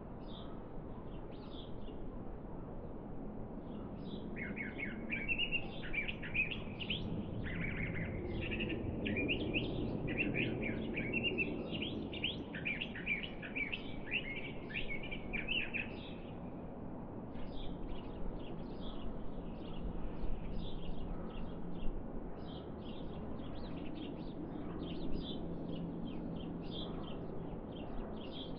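Small songbirds chirping and twittering: a dense run of quick chirps for about ten seconds, thinning to scattered chirps for the rest, over a steady low background rumble.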